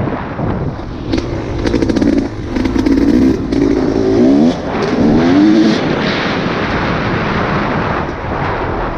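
Off-road vehicle engine running and revving up and down several times around the middle, under heavy wind buffeting on the microphone.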